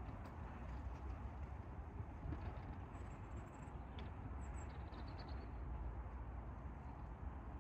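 Wind buffeting the microphone, a steady low rumble with a hiss over it, and a few faint high bird chirps near the middle.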